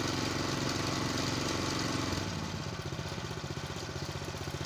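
Power tiller's small air-cooled single-cylinder petrol engine running just after a first-pull start on its new recoil starter rope. About two seconds in it drops to a quieter idle with an even beat.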